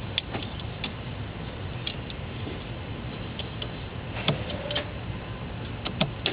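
Scattered light clicks and ticks of hands working at car wiring, splitting the insulation open, with a sharper click about four seconds in, over a steady low hum.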